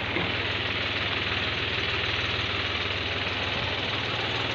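A vehicle engine running steadily at low revs with an even low throb, the vehicle moving slowly.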